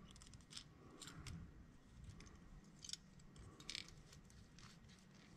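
Faint, scattered metal clicks of split-ring pliers and a steel split ring as a treble hook is turned onto the ring.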